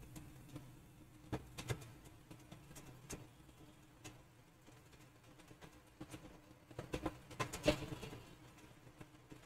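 Faint room tone with a low steady hum, broken by a few soft clicks, a cluster of them about seven to eight seconds in: computer mouse clicks while setting up a workflow node.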